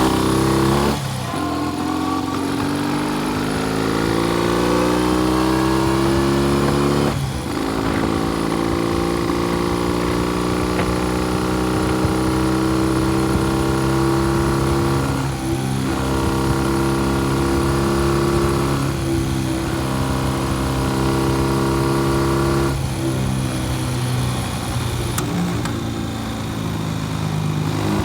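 Classic British parallel-twin motorcycle engine, the Norton Dominator's, running on one cylinder: a fuel-starvation fault from its troublesome carburettor. The engine note climbs over the first several seconds, then holds steady with a few brief dips.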